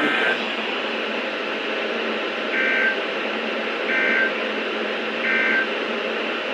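Emergency Alert System (SAME) end-of-message data bursts over steady radio static: short two-tone warbling chirps, one right at the start and then three more about 1.3 s apart, each about a third of a second long.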